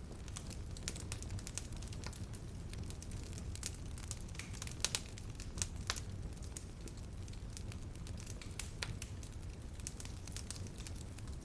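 Wood fire in a fireplace crackling steadily over a low rumble of the flames, with a few louder pops near the middle.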